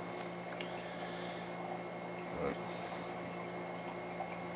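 Steady faint electrical hum and hiss of room tone, with one brief murmur from a voice about halfway through.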